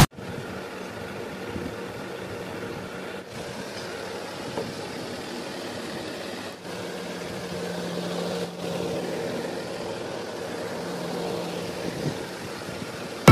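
Small electric motors of a homemade cardboard model helicopter running, spinning its main and tail rotors: a steady whir with a low hum, somewhat stronger about seven to nine seconds in.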